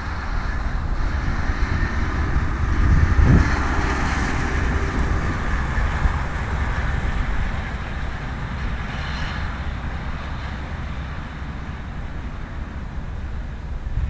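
Strong wind gusting through forest trees, with low rumbling buffeting on the microphone. A gust swells about three seconds in, then the wind gradually eases toward the end.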